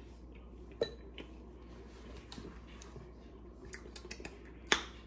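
A metal fork clicking against dishes a few times, with the loudest click near the end.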